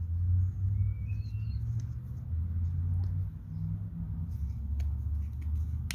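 Plastic cap being twisted back onto a J-B Weld Plastic Bonder syringe: a short rising squeak about a second in and a few faint clicks later as it locks into place, over a steady low rumble.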